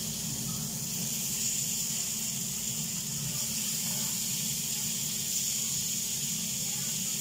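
Chicken skewers sizzling on a hot flat griddle: a steady hiss over a low hum.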